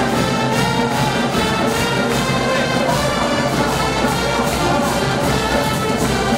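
Brass band music with trumpets and trombones over a steady beat.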